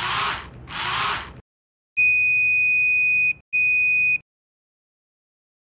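An Arduino robot car's small geared DC motors whir in two short runs, then the car's buzzer horn sounds a steady high-pitched beep twice, the first about twice as long as the second.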